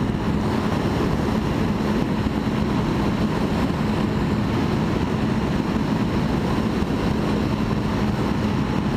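Motorcycle riding at a steady cruise: the constant drone of a Honda Nighthawk 650 inline-four engine under heavy wind noise on the helmet-mounted camera microphone.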